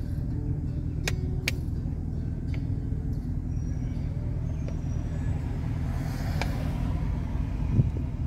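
Steady low engine and road rumble heard from inside a car's cabin, with two sharp clicks about a second in and a brief hiss that swells and fades about six seconds in.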